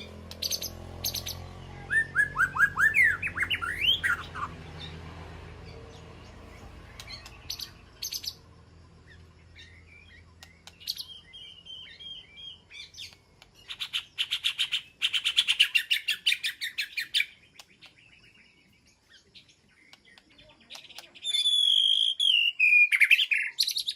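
White-rumped shama singing in varied phrases: a run of quick upward-slurred whistles, then a fast chattering trill, and near the end a falling whistled phrase.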